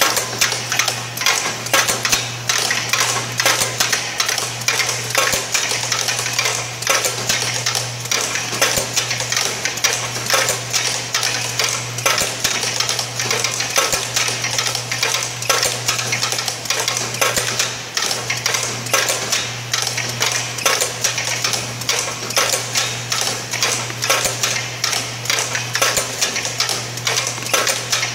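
Automated packaging machine running its cycle: a fast, steady, rhythmic clatter of clicks and knocks from its hose-fed actuators, over a continuous low hum.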